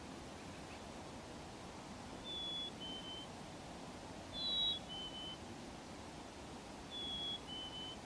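Black-capped chickadee singing its whistled two-note fee-bee song three times, each a clear higher note followed by a slightly lower one, over a steady low hiss.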